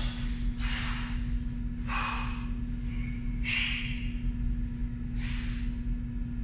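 A woman breathing hard in short, forceful breaths, four of them about a second and a half apart, in time with push-up reps.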